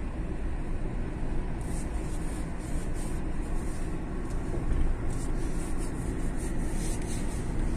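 Car driving along a road, a steady rumble of engine and tyre noise heard from inside the cabin.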